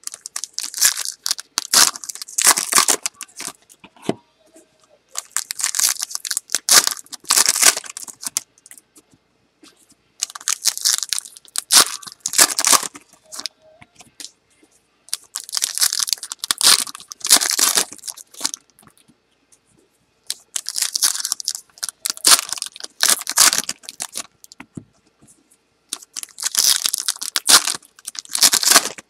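2012 Panini Prizm Baseball foil packs being ripped open one after another. A cluster of loud tearing comes about every five seconds, six times over.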